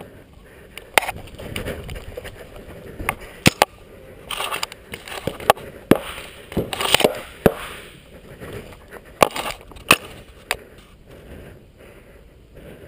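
Paintball markers firing: irregular sharp pops, some single and some in quick clusters, scattered through the stretch and thinning out near the end.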